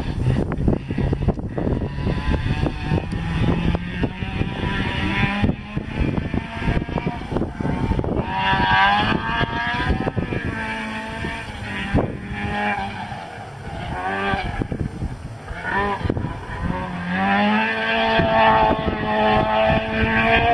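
Rally car engine at high revs on a gravel stage, the pitch climbing and dropping back repeatedly through gear changes and lifts off the throttle.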